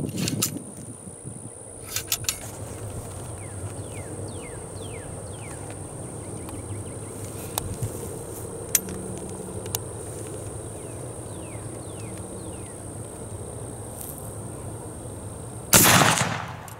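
A Model 1842 rifle musket firing a single black-powder round with a .69 calibre Minié ball near the end: one loud shot that rings out for about a second. Earlier, a few light metallic clicks from the ramrod being drawn and returned and from the lock being readied.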